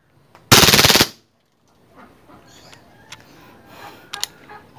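WE G18 gas blowback airsoft pistol, charged with green gas, firing a short full-auto burst of rapid shots lasting about half a second, about half a second in. A few light clicks follow later.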